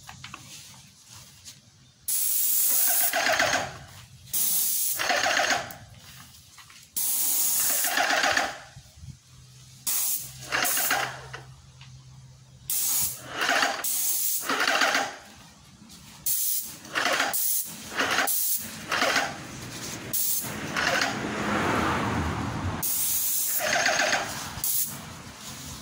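Graco Magnum ProX19 airless paint sprayer gun hissing as paint is sprayed in repeated bursts of about one to two seconds. Each burst starts and stops abruptly as the trigger is pulled and released.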